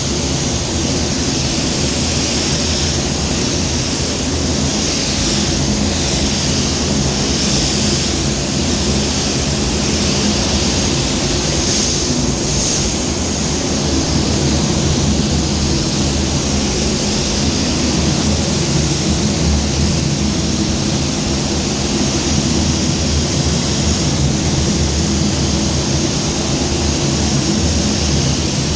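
Compressed-air spray gun hissing as a wet coat of clear is sprayed onto a bumper, the hiss swelling and easing with the passes, over the steady hum of the paint booth's fans.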